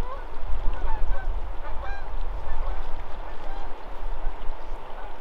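Several birds calling in short calls that bend up and down in pitch, over a steady low rumble.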